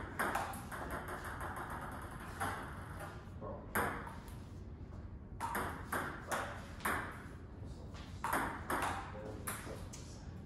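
Table tennis rally: a celluloid-style ball clicking off rubber paddles and bouncing on the table in quick alternation, the hits echoing in a large hard-walled room. The hitting breaks off for about a second and a half a little after four seconds in, then a new rally starts.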